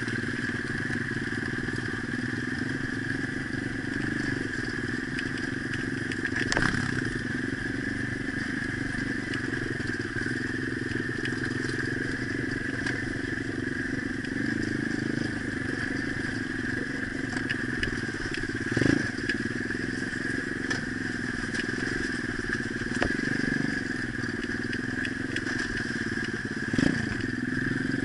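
Pit bike engine running while riding over a rough dirt track, its pitch rising and falling with the throttle, with a few sharp knocks from the bumps.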